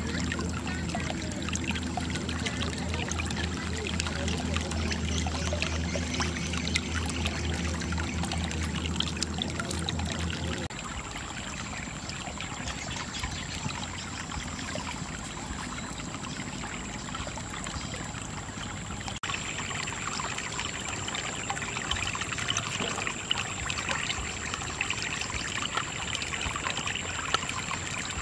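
Water pouring steadily from two plastic pipes and splashing into a basket of pooled muddy water. A low rumble under it stops suddenly about a third of the way in.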